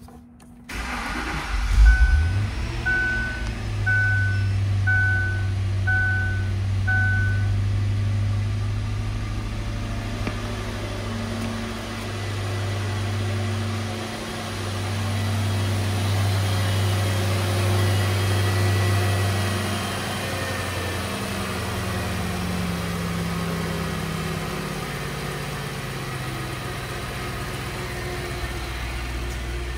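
2003 Ford Thunderbird's 3.9-litre V8 starting about a second and a half in, then idling steadily. The car's warning chime beeps five times, about once a second, in the first several seconds. About twenty seconds in, the idle speed drops and settles lower.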